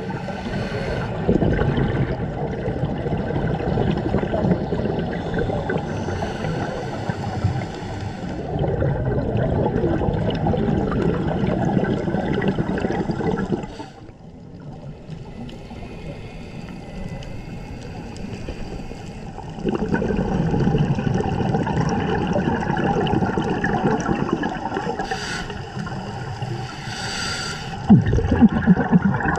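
Underwater bubbling and gurgling from scuba divers' regulator exhaust bubbles. It drops to a quieter underwater hush for several seconds about halfway, then the bubbling returns.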